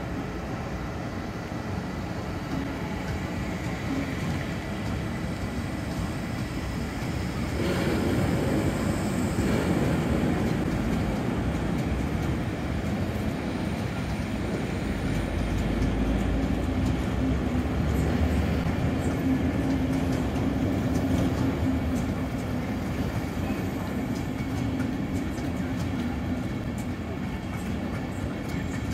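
A Danish class EB (Siemens Vectron) electric locomotive hauling Intercity coaches slowly past below, a steady rolling rumble of wheels on rail that grows louder about eight seconds in as the coaches come close.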